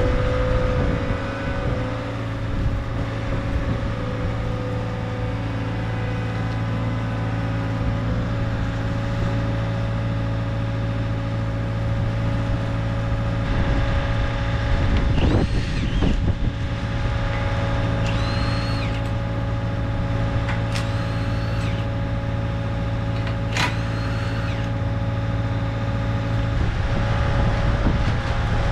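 Bobcat T66 compact track loader's diesel engine running steadily as it works. A few sharp clanks and short high squeaks come in the middle stretch, from the forks and rigging as the sign is taken up.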